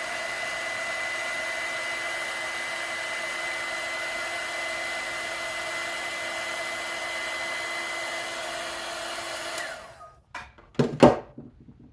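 Electric heat gun blowing steadily with a whine, shrinking heat-shrink tubing over a soldered wire splice. It switches off about ten seconds in, followed by a few sharp knocks.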